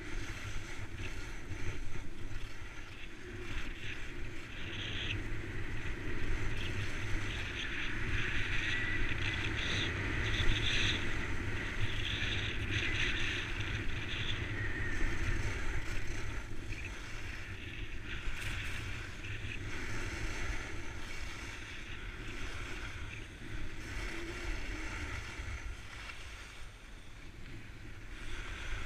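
Wind buffeting a moving action-camera microphone during a ski descent, a steady low rumble, with the hiss of skis scraping over packed snow that swells and fades with the turns.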